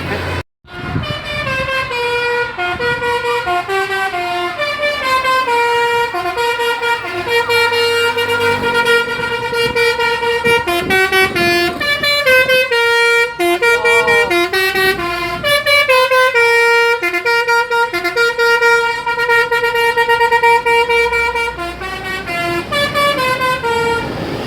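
Telolet horn, a multi-tone musical air horn, playing a fast tune of stepping notes over and over, from about half a second in.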